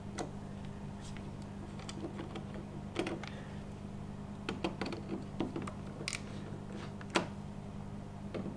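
Light, irregular clicks and taps of a precision screwdriver working the small bogie screws of an N gauge model train, over a steady low hum.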